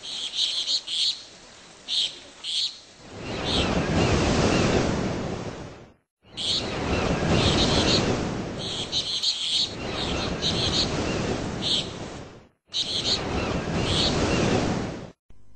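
Short high chirps, like bird calls, over a rushing noise that swells up and dies away three times, each take ending in a sudden cut to silence.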